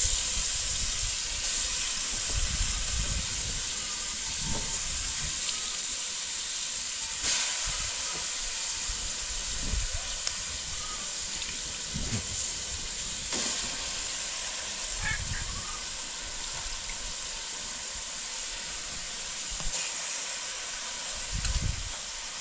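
Steady hiss of a gas stove burner under a cooking pot, with soft sloshes and splashes of water as raw meat is washed by hand in a metal basin.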